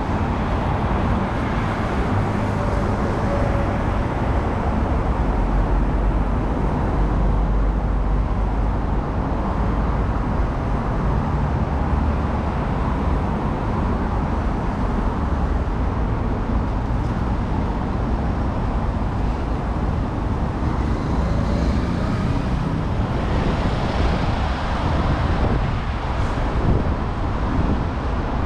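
City street traffic noise: cars passing, with a steady low rumble of road noise.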